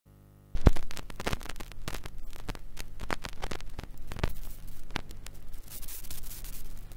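Vinyl LP surface noise in the lead-in groove: irregular crackles and pops over hiss and a low steady hum, starting with a sharp jump in level about half a second in.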